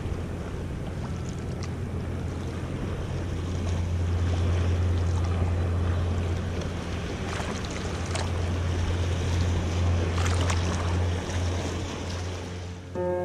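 Sea water lapping and splashing right at the microphone, with small waves breaking on rocks, a couple of brief louder splashes in the second half, and a steady low rumble underneath.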